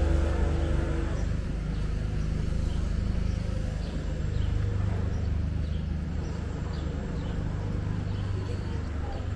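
Outdoor pedestrian-street ambience: a steady low rumble with short, high bird chirps scattered through it. The tail of background music ends about a second in.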